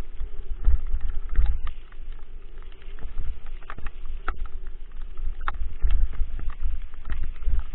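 Dog scooter pulled at speed by two dogs over a bumpy, leaf-strewn dirt track: a steady low rumble from the ride, with many sharp rattles and clicking knocks as the scooter and its mounted camera jolt over the ground.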